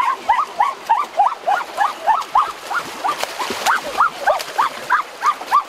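Several animals giving short, arched, yelping calls over and over, several a second and overlapping one another. A splash of water a little after three seconds in.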